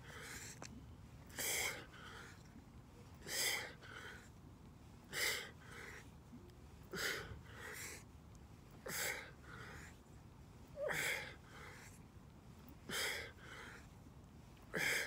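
A man's hard breaths timed to kettlebell swings: a loud breath out roughly every two seconds, eight in all, each followed by a shorter, softer breath.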